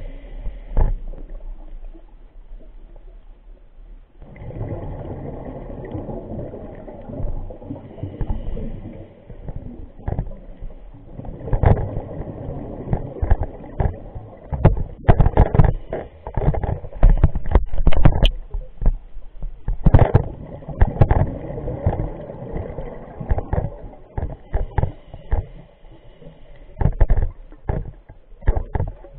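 Muffled underwater sound heard through a camera's waterproof housing: a low rumble with irregular loud bursts of bubbling and clicking, typical of a scuba diver's exhaled regulator bubbles.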